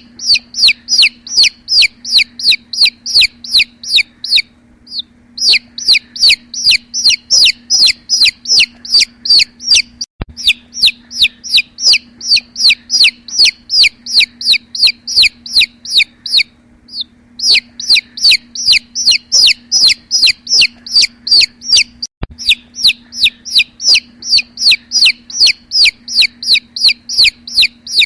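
A bird calling over and over in quick, high-pitched notes, about five a second, in runs of several seconds with short breaks between them. A faint steady hum lies underneath.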